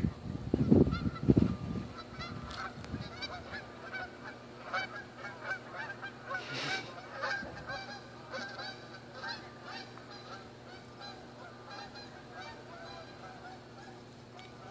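A flock of geese honking, many short overlapping calls that thin out and fade near the end. A few loud low thumps on the microphone in the first two seconds.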